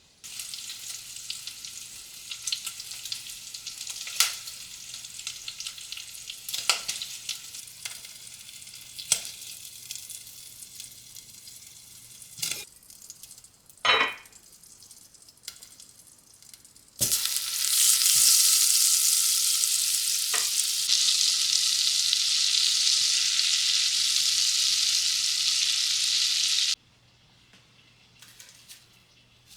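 Food sizzling in a hot pan, with utensil clicks and scrapes from stirring. About two-thirds of the way in, the sizzling jumps much louder, then stops suddenly near the end.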